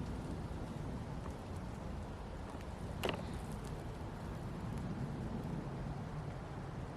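Steady outdoor background noise: a low rumble and hiss, with one short crackle about three seconds in.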